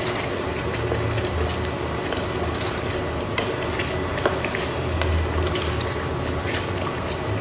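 A spatula stirring a thick, simmering curry in a nonstick wok, with scattered light scrapes and taps against the pan over a steady low hum.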